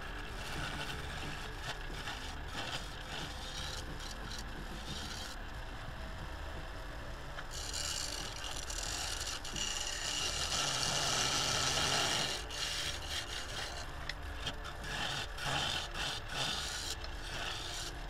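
Wood lathe running with a steady hum while a turning tool works the outside of a spinning claret ash bowl blank, giving a scratchy, hissing cut with scattered ticks. The cutting noise swells to its loudest for a few seconds in the middle.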